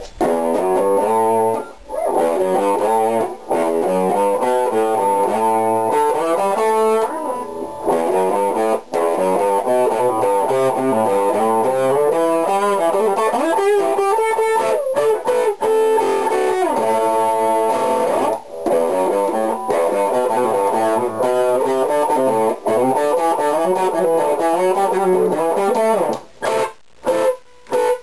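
Gold-top Les Paul-style electric guitar played as an improvised instrumental in A minor, with ascending riffs and descending chords. The notes shift constantly. Near the end it breaks into short chopped stabs with gaps between them. The sound is lo-fi, picked up by a digital camera's built-in microphone.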